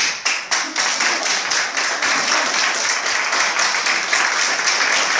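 A small audience applauding by hand. It starts with a few separate claps and within about half a second fills in to steady, dense clapping.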